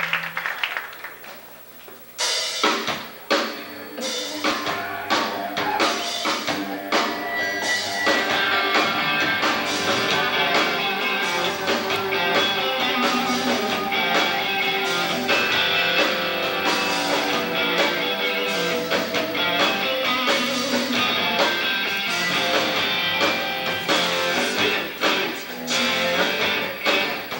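Rock band playing live on electric guitars, bass and drum kit. The band comes in together about two seconds in after a quieter start, then plays on loud and full with steady drum hits.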